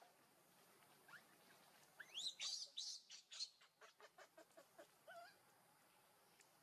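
Baby macaque crying: shrill squeals that sweep sharply upward, then a quick run of short cries, about six a second, and one last wavering call.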